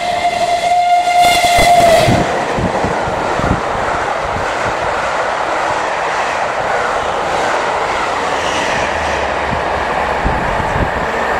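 Steam whistle of Bulleid Merchant Navy locomotive 35028 Clan Line, a long blast that ends about two seconds in with its pitch dipping as the engine passes at speed. Then a steady rush and wheel clatter as the train's coaches go by.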